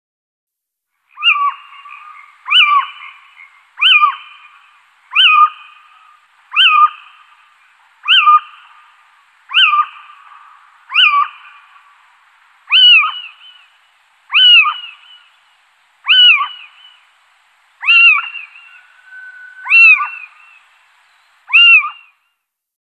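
Little owl calling: a series of fourteen sharp, yelping calls, each rising then falling in pitch, about one every second and a half.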